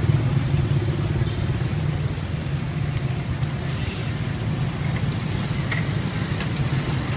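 A motor vehicle engine running steadily nearby, heard as a continuous low hum under street traffic, with a brief high squeak about four seconds in.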